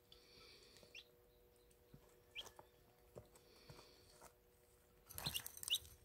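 Young chicks peeping faintly, a few short, quickly rising chirps. Near the end comes a louder burst of rustling with two more chirps.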